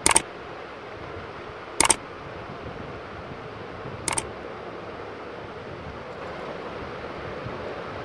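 Three click sound effects from a like-subscribe-bell button animation, one each for the Like, Subscribe and bell buttons, about two seconds apart, each a quick double click. A steady low hiss runs underneath.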